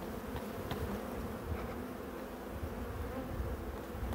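Honeybees buzzing around an open hive with its frames exposed: a steady hum.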